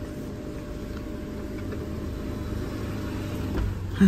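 Steady low hum of a Hyundai Creta SUV idling, heard from inside the cabin.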